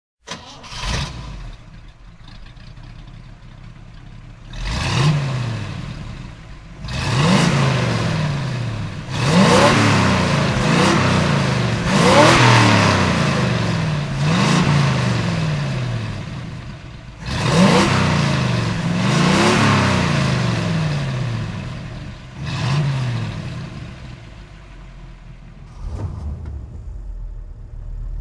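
A 1961 Chevrolet Corvette's 230 bhp 4.6-litre V8 idles for a few seconds. It is then revved about nine times, each rev climbing and dropping back toward idle, with the idle settling again near the end.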